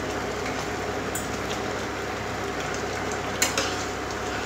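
Egg curry gravy simmering in a non-stick pan on an induction cooktop, a steady sizzling hiss. About three and a half seconds in, a steel spoon clicks against the pan as the curry is stirred.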